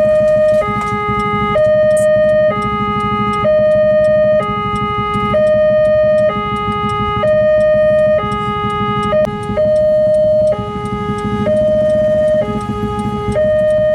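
Railway level-crossing electronic warning alarm sounding a repeating two-tone signal: a higher tone and a lower tone alternate, each held a little under a second, warning that a train is coming while the barrier is down. A steady low hum of idling motorbike engines runs underneath.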